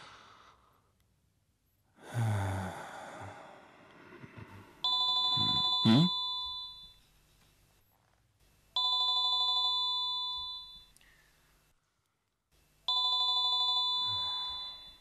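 Corded desk telephone ringing with an electronic ring: three rings of about two seconds each, roughly four seconds apart, starting about five seconds in. A short rushing noise comes about two seconds in, and a quick rising sweep cuts across the first ring.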